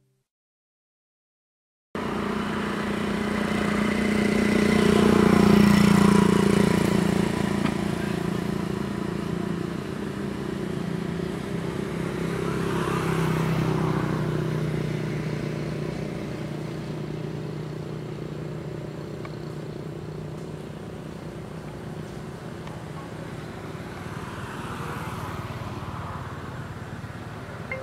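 Motor vehicle engines passing in the background, a steady hum that swells about three seconds in and again near the middle, then fades slowly. The first two seconds are silent.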